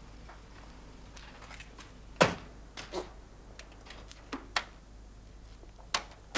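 A car door shut with a single loud thunk about two seconds in, followed by a few scattered footsteps on paving.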